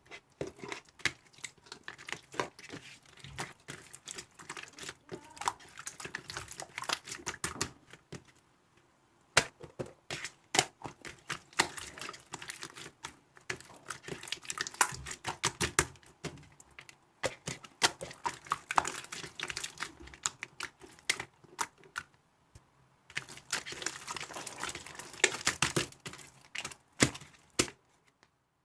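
Rapid, irregular clicking and crinkling in bursts lasting several seconds, with short pauses between bursts.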